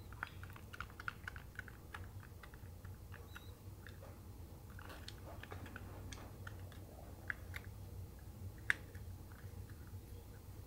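Faint, irregular clicks of remote-control buttons being pressed while stepping through on-screen menus, over a steady low hum.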